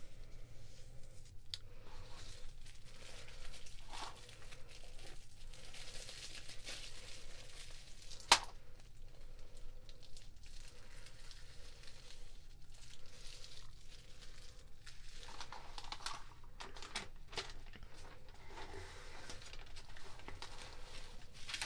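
Packaging crinkling and rustling as it is handled, broken by scattered light clicks and one sharp click about eight seconds in.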